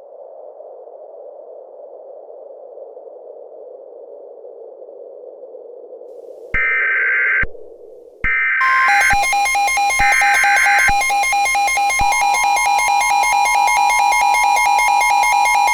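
A steady muffled rushing noise, then three short warbling data bursts of an Emergency Alert System header. From about nine seconds in, a loud alert tone is held, with a rapid even pulsing, announcing the next warning.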